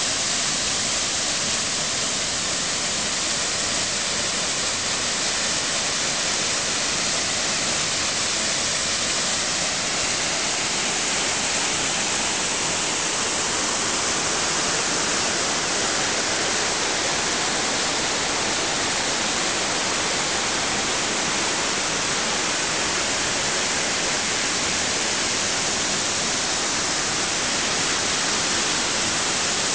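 Steady rush of a waterfall: an unbroken, even hiss of falling water.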